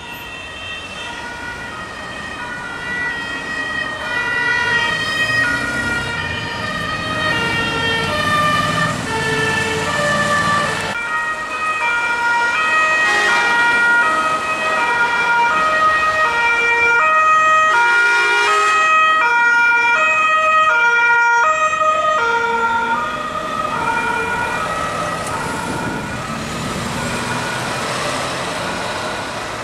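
Several Italian two-tone emergency sirens on a police escort convoy, sounding out of step with each other over passing vehicle engines. They grow louder as the convoy approaches, peak about halfway through, then fade somewhat.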